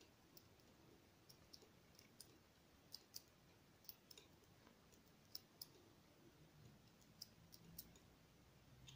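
Faint, irregular light clicks and taps of a metal palette knife working oil paint on a sheet of paper laid on a table.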